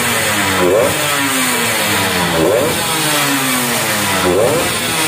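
Underbone road-race motorcycle engine with a racing exhaust, held on a stand and blipped on the throttle. Three sharp revs about two seconds apart, each sinking back slowly toward idle.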